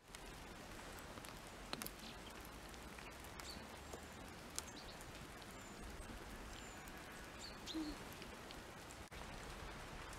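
Faint outdoor ambience with a few short, high bird chirps and scattered small ticks.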